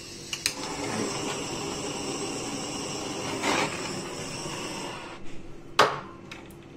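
Handheld butane torch on a gas canister: a click about half a second in, then its flame hissing steadily for about four and a half seconds before it stops. A sharp knock near the end.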